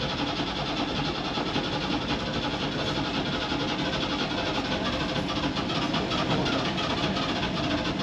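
Boat's diesel engine running steadily.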